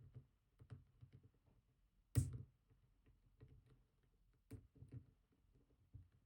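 Lock pick and tension wrench working the pin stacks of a GEGE pExtra+ oval cylinder: faint metallic scratching and ticking, with a sharp click about two seconds in and a smaller one about four and a half seconds in.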